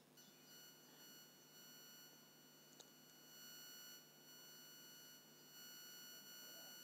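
Near silence: a faint steady whine of several high tones, with a single faint tick a little under three seconds in.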